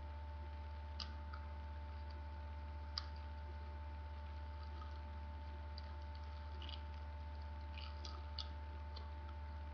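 A sheet of origami paper crinkling in a few short crackles as it is folded and twisted by hand, over a steady low electrical hum.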